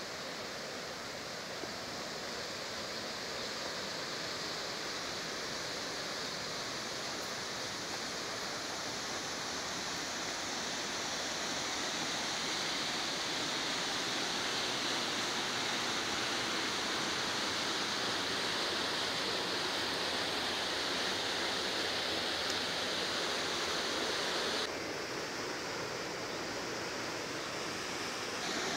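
River water rushing and splashing as a steady hiss that grows slowly louder, then drops abruptly a few seconds before the end.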